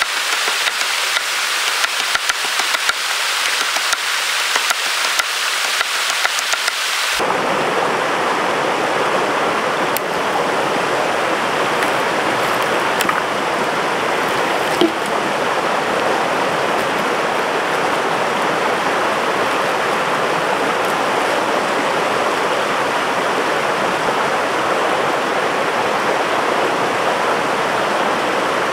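A high hiss dotted with many small crackles, cut off suddenly about seven seconds in by a stream's water rushing steadily over rocks, with one sharp knock partway through.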